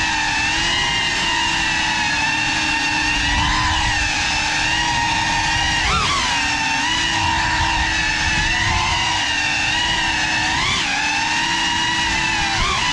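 GEPRC CineLog35 cinewhoop's brushless motors and ducted propellers whining steadily in flight, pitch jumping up briefly with bursts of throttle about six seconds in, near eleven seconds and near the end.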